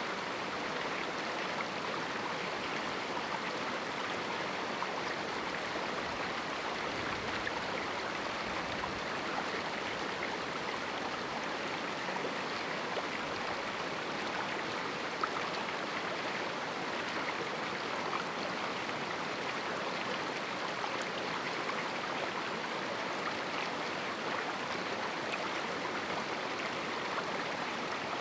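Steady rush of a small river flowing through a rocky canyon.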